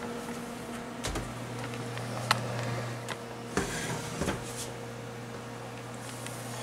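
A wall oven opened and a baked pot pie pulled out with oven mitts: a few scattered knocks and clicks of the door, rack and dish over a steady low hum.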